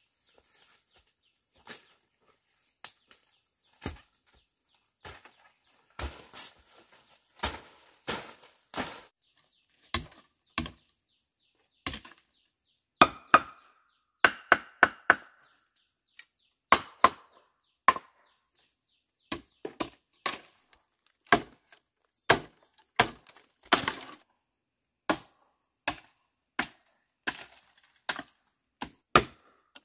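A blade chopping into bamboo culms: single sharp strikes, sparse at first and then about one a second, a few of them with a short hollow ring.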